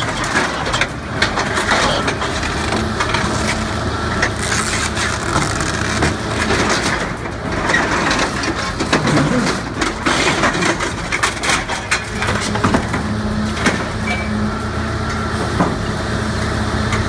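Hydraulic demolition shears crushing and tearing steel: dense metallic crunching and scraping with many sharp cracks, over the steady hum of the machine's diesel engine.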